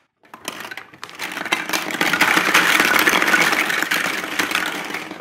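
Large plastic toddler building blocks being tipped out of a toy bag onto a wooden floor: a dense clatter of many small knocks that builds about a second in and is loudest in the middle.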